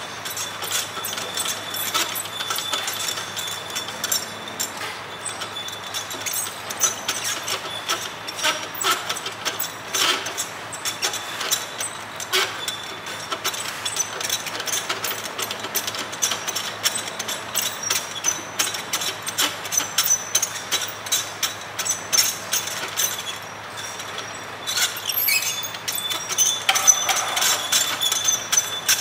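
Rapid, irregular metallic clicks and knocks from rail-lowering work with a truck-mounted crane, over a steady high-pitched whine.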